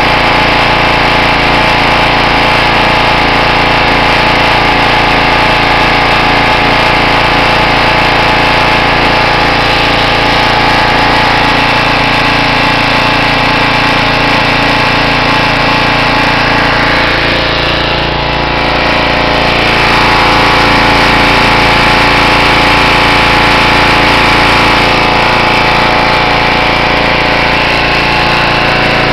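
Small gasoline engine of a Simoniz 2350 PSI pressure washer running steadily after a restart, dipping briefly about two-thirds of the way through and then running a little louder.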